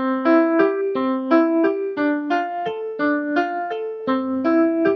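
Short keyboard jingle: an electric piano plays an even run of single notes, about three a second, and a low bass note comes in near the end.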